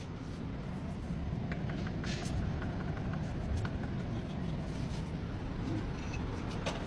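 Steady low rumble of a car running, building up over the first second and then holding, with a few light clicks.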